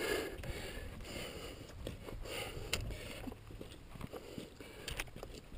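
Loose scree clinking and scraping under a climber's hands and feet: scattered faint clicks of rock on rock over a low rumble.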